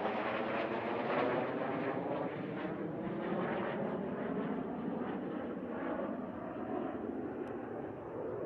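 Jet noise from Canadair NF-5 fighters, each powered by two General Electric J85 turbojets, flying a display overhead. A steady rushing sound that eases slightly toward the end.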